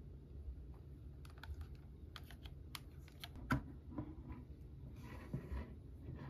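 Small hard-plastic clicks and taps, a dozen or so over a couple of seconds, the loudest about three and a half seconds in as a round plastic capsule case is pulled open. A short rustle follows near the end.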